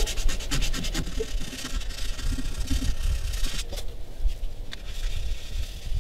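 Hand sanding a fiberglass boat transom with 80-grit sandpaper: rapid back-and-forth scratching strokes, about six a second, that stop about a second in, followed by lighter, irregular scraping and rubbing as a hand works over the sanded surface.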